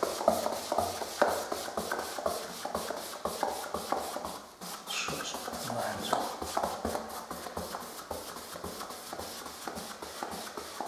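Paintbrush swishing and scratching on a plaster wall in quick back-and-forth strokes, brushing on a first coat of matt emulsion.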